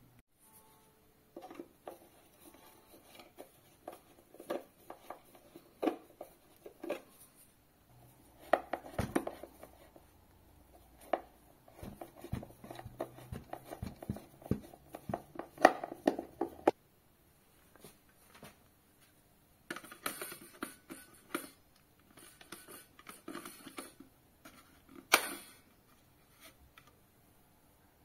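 Hand screwdriver driving screws through a plastic smoke-detector mounting plate into a ceiling: irregular clicks, creaks and scrapes. After a pause there is more plastic handling and a single sharp click near the end, as the detector is fitted onto its base.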